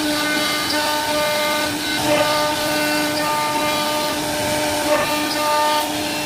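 CNC router spindle running with its bit cutting grooves into a wooden panel: a steady high whine over a constant cutting hiss. The whine wavers about two seconds in and again near five seconds.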